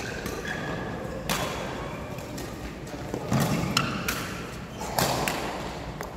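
Badminton rally in men's doubles: rackets hit the shuttlecock with sharp smacks, half a dozen hits a second or so apart, mixed with thuds of players' feet landing on the court floor.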